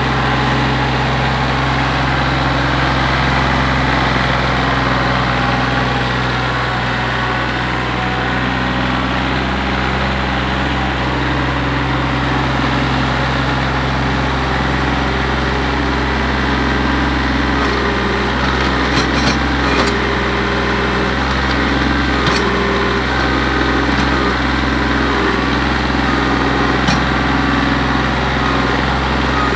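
Compact tractor engine running at a steady speed as the tractor works slowly along a dirt berm with its front loader, with a few light clicks about two-thirds of the way through.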